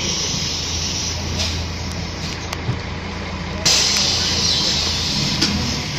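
City bus engine idling with a steady low hum while standing at a stop. About three and a half seconds in, a sudden loud hiss of compressed air bursts out from the bus's pneumatic system.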